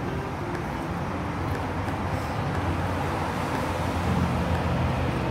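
Steady low rumble of road traffic, swelling slightly about four seconds in.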